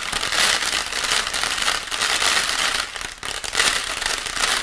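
Rice grains falling onto a sheet of A4 paper as a foley imitation of rain: a dense, steady crackling hiss that eases briefly a little after three seconds.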